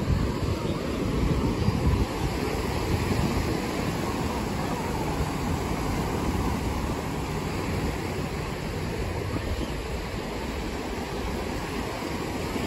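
Ocean surf washing on the shore, steady and continuous, with wind buffeting the microphone.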